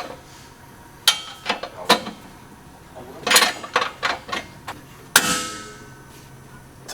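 Hammer blows on metal, about eight irregularly spaced strikes, the last one ringing briefly: a tight-fitting suspension part being forced into place.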